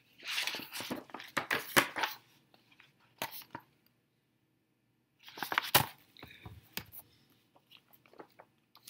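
Glossy magazine pages rustling and crinkling as they are flipped and handled close to the microphone. There are two bursts, one at the start and one about five seconds in, with scattered crackles and taps between.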